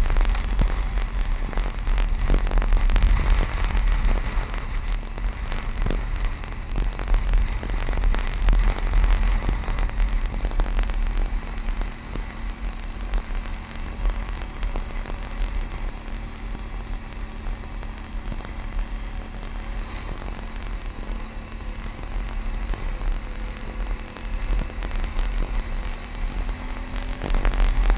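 CanAm Outlander ATV riding over a gravel road, its engine drone nearly buried under heavy wind buffeting on the camera microphone. Scattered crackles and knocks from gravel and bumps come through.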